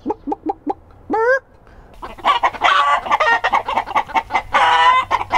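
Domestic chickens: a hen clucking in short, quick clucks, with a rising squawk about a second in. From about two seconds in, the flock breaks into loud, overlapping calls, with a rooster crowing among them.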